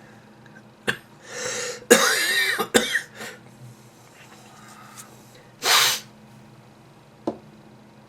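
A man coughing from a flu that has gone on for weeks: a breath in, then a loud voiced cough about two seconds in with a short sharp one right after, and another loud cough near six seconds.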